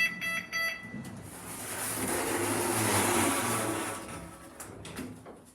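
Passenger lift in operation: a run of short electronic beeps at the start, then a swell of rushing noise over a low hum that builds, peaks about three seconds in and fades away.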